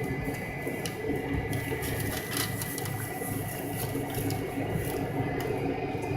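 Cabin noise of an MD-83 airliner with its rear-mounted Pratt & Whitney JT8D turbofans running: a steady low drone with a thin steady whine above it, and light rattles and clicks from the cabin.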